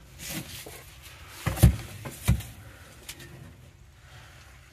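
A corroded old battery cable being pulled out and handled against the steel of a battery compartment: a faint rustle, then two dull knocks about a second and a half and two seconds in.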